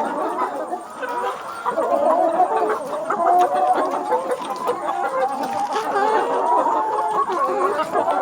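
A flock of chickens clucking and calling, with many short calls overlapping in a dense, continuous chatter.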